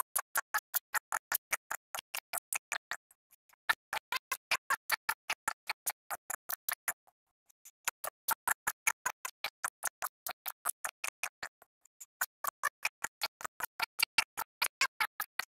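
Rapid, evenly spaced clicking, about six clicks a second, in runs broken by short pauses about three, seven and twelve seconds in.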